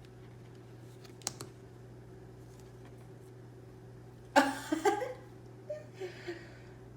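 Two sharp clicks about a second in from the large tarot cards being handled, over a steady low room hum. About four and a half seconds in comes a brief nonverbal vocal outburst, the loudest sound here, followed by a few softer vocal sounds.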